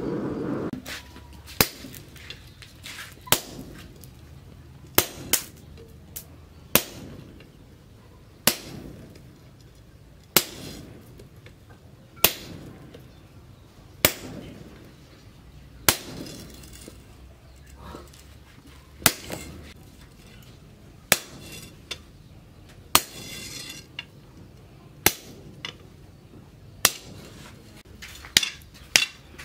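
Sledgehammer blows on a hot-cut chisel held in tongs, cutting across a red-hot leaf spring on an anvil. Sharp metallic strikes come about every two seconds, with a quicker run of blows near the end.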